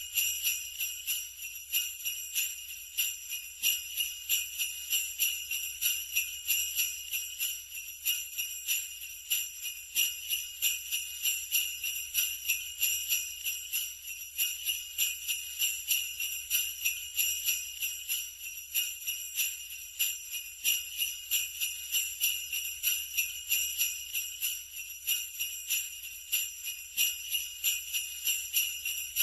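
Sleigh bells shaken steadily in an even rhythm, a continuous bright metallic jingling.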